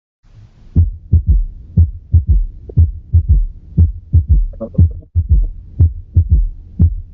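Recorded heart sounds heard through a stethoscope: a gallop rhythm, with three low thumps to each heartbeat at about one beat a second. The extra sound after the second heart sound is a third heart sound, from rapid filling of the ventricle.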